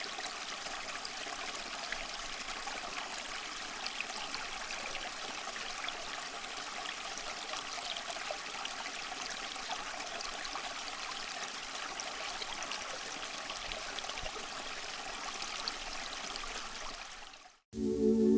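Water trickling and splashing steadily down a small homemade cement waterfall fountain. It cuts off suddenly near the end and music begins.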